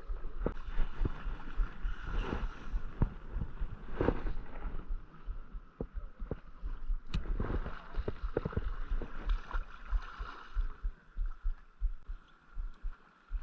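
Creek water rushing steadily, overlaid with irregular low thumps and sharp knocks from handling or wind on the microphone, busiest in the first half.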